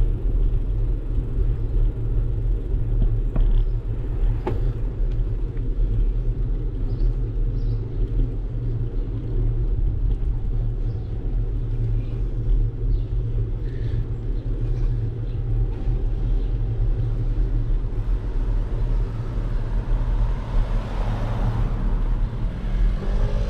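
Steady low rumble from a moving bicycle, heard on a bike-mounted GoPro: wind buffeting the microphone and tyres rolling on pavement. The noise swells a little near the end.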